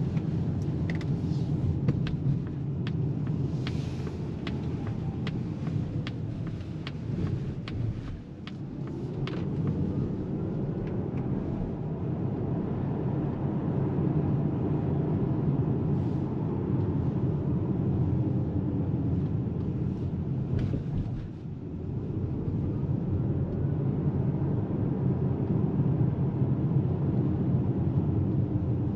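Cabin noise of a Polestar 2 Dual Motor electric car driving: steady tyre and road rumble, with a faint whine from the electric motors that rises in pitch as the car picks up speed after easing off, about eight seconds in and again about twenty-one seconds in. A run of short sharp ticks sounds during the first nine seconds.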